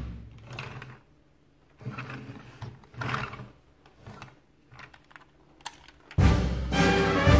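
Scattered clicks and light knocks of a plastic toy truck being handled. Background music starts loudly near the end.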